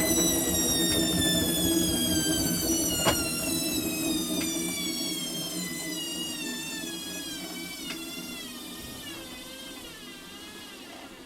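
Hoover Quattro System washing machine winding down from a spin: the motor's whine falls steadily in pitch and fades as the drum slows, with a couple of light clicks along the way. Near the end the pitch wavers.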